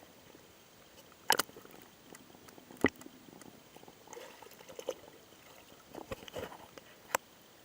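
Three sharp knocks, about a second and a half in, near three seconds and near the end, with softer clattering between.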